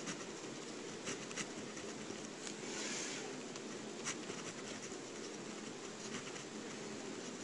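Faint scratching of a Livescribe smartpen writing on paper, with a few light ticks of the pen tip over a steady low hiss.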